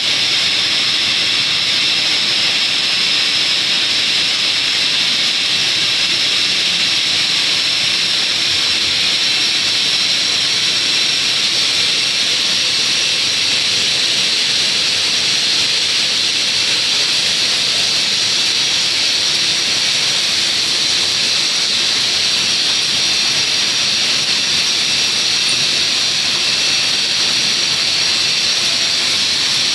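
Rotary bottle rinsing, filling and capping machine running: a loud, steady hiss with no breaks or changes.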